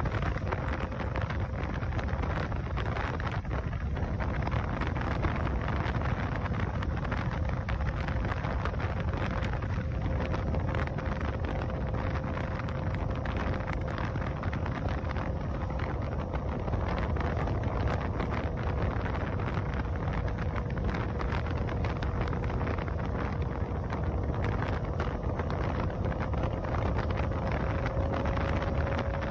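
Wind buffeting a handlebar-mounted phone's microphone, with road and tyre noise, as a Zero FX electric motorcycle cruises at about 42 mph. A thin, steady electric-drive whine runs under the rush and rises slightly near the end as the bike speeds up.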